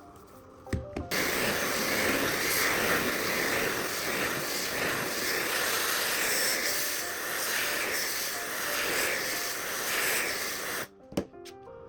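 Small electric blower switched on with a click, blowing with a steady hiss for about ten seconds, then cut off suddenly. A couple of clicks follow.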